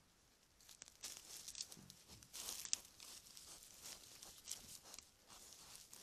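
Faint rustling, crackling and crunching of leaf litter and twigs as wild boar root and shuffle close to the trail camera. There is one sharp click about two and a half seconds in.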